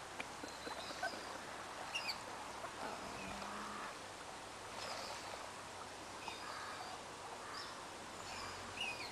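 Faint outdoor background noise with short bird chirps every second or two, some gliding in pitch.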